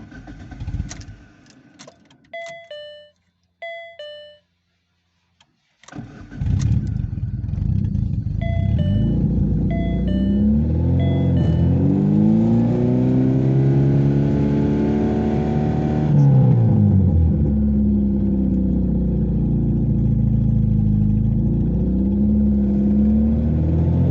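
Two-tone electronic beeps sound twice. About six seconds in, a VAZ 2115's 1.5-litre fuel-injected engine starts and runs, its drivetrain hum rising and falling in pitch several times as the revs change during a check of the five-speed manual gearbox for noise. More two-tone beeps sound a few seconds after it starts.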